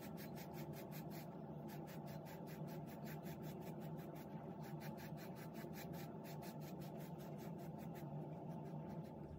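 Stiff, coarse-bristled beard brush scratching through a coarse beard in quick, even strokes, faint.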